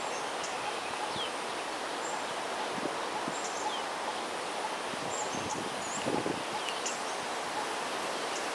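Steady outdoor background hiss with scattered short, high bird chirps, some sliding down in pitch, and a soft low thump or two about six seconds in.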